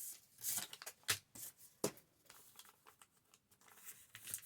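Sheets of paper rustling as they are handled, with two sharp taps less than a second apart.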